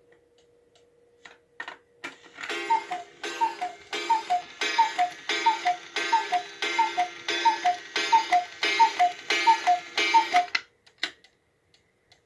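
Black Forest cuckoo clock striking twelve: twelve falling two-note cuckoo calls from its bellows pipes, a little faster than one a second, each with a puff of air hiss. The calls come after a few clicks of the striking mechanism releasing, and a few sharp clicks follow near the end.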